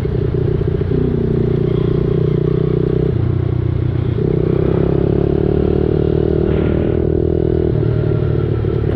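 Dirt bike engine running steadily while riding, its note changing about three seconds in and settling again about a second later.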